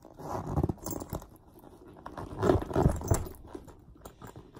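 Hands pushing a pair of booties into a stuffed shoulder bag and pressing its top down: irregular rustling and soft knocks, loudest between about two and a half and three seconds in.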